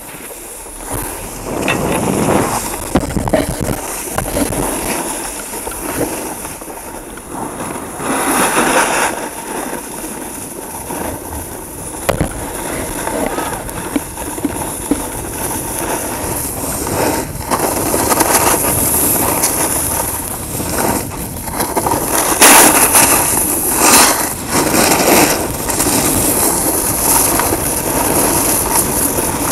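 Snowboard carving down a groomed slope: edges scraping and hissing over hard-packed snow, the noise swelling and easing with each turn, loudest about eight seconds in and again from about twenty-two seconds. Air rushes steadily over the microphone at speed.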